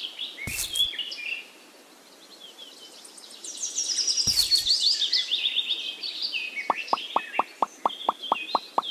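Birdsong of chirps and trills, with two short thuds about half a second and four seconds in. Near the end a quick even run of short plopping pops begins, about four a second.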